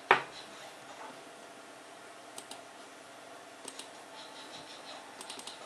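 Computer mouse clicking: a sharp knock right at the start, a quick pair of clicks about two seconds in, another pair a little later, and a short run of clicks near the end.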